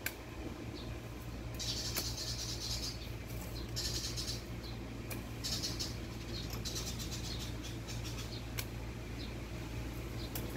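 Knife cutting hands of bananas off the stalk of a harvested bunch: several short rasping cuts through the fibrous crown, with a few sharp knocks of the blade against the stalk.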